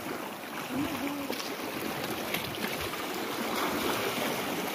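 Sea water washing and splashing against shoreline rocks, a steady rushing wash.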